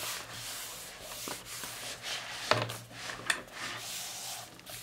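A hand rubbing and smoothing across a sketchbook's paper page to press it flat. The rustling runs throughout, with a few short soft knocks.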